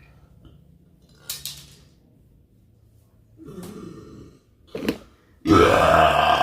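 A person's loud, long burp starts about five and a half seconds in, after a few short clicks and small handling noises.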